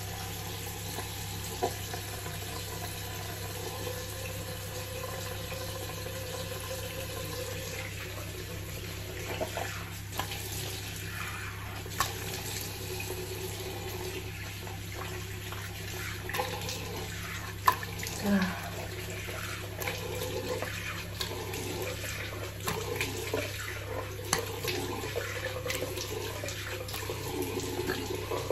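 Tap running into a bathroom sink while water is splashed onto the face to rinse off foaming cleanser, with irregular splashes over the steady flow.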